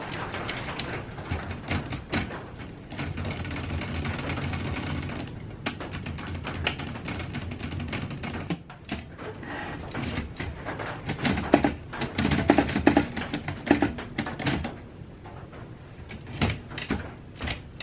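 A 1950s Olympia Deluxe manual typewriter being worked by hand: irregular clacks of keys and typebars striking, with a short stretch of denser, steadier rattling a few seconds in. The loudest strikes come in the second half. The mechanism is stiff, and the owner says it will need a lot of oiling.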